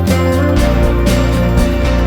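Background music with a steady beat; the bass moves to a lower note about half a second in.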